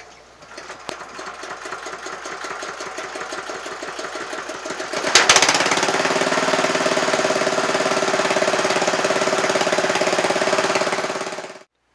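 Honda GX160 single-cylinder petrol engine being spun over by its own DC dynamo, a Flymo mower motor running as a starter off a 12 V battery. The cranking grows louder for about five seconds, then the engine fires with a sharp bang and settles into a steady slow run at its governed speed of about 1000 rpm, driving the dynamo to charge the battery. The sound cuts off suddenly near the end.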